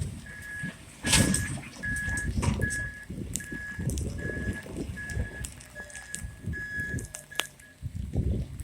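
Backup alarm on a work vehicle reversing: about ten evenly spaced single-pitch beeps, stopping near the end, over a low rumble.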